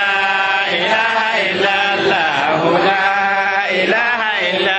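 Men chanting Islamic dhikr in Arabic, the remembrance of God, in long, held melodic phrases that bend up and down without a pause.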